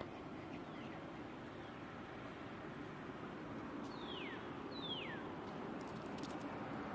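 Steady outdoor background hiss, with two short, high whistled calls about four seconds in, a second apart, each falling steeply in pitch.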